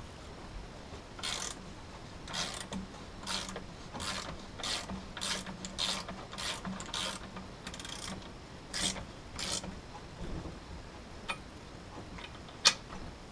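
Socket ratchet wrench clicking in repeated back-swings, about one to two a second, as a nut is cranked tight on the power trim tilt unit's mounting bolt. The clicking thins out after about ten seconds, with a single sharper click near the end.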